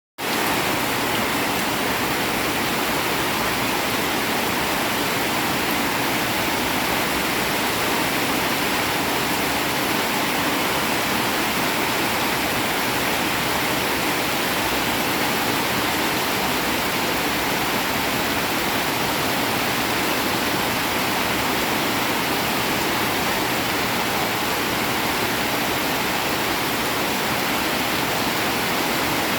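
Heavy rain falling steadily: a dense, even hiss with no separate drops standing out.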